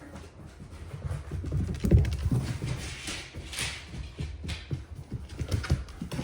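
A Labrador retriever walking on a hard floor: claws clicking and paws padding in a quick, irregular run of steps, loudest about two seconds in.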